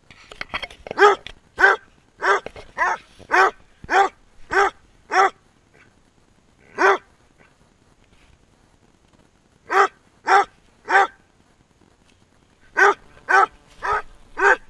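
Basset hound barking in runs of quick, evenly spaced barks, about one every half second or so, with a single bark and short pauses between the runs.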